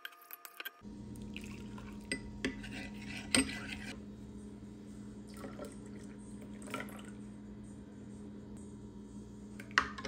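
A metal spoon clinks and scrapes against a ceramic bowl while thick chocolate paste is mixed, with a few sharp clinks, one louder about three and a half seconds in. Liquid is then poured into a glass mug, and a steady low hum runs underneath from about a second in.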